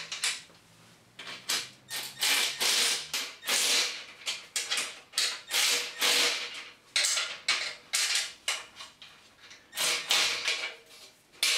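Cordless electric ratchet running in a quick series of short bursts, spinning nuts down onto the bolts of a steel stand to tighten them.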